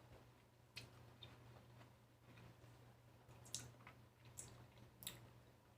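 Faint close-up sounds of eating lychees: about five scattered soft clicks and squishes of the fruit being peeled and chewed, over a low steady hum.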